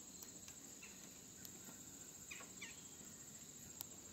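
Near silence with a faint, steady high trill of crickets, broken by a few faint clicks and two short faint chirps a little past the middle.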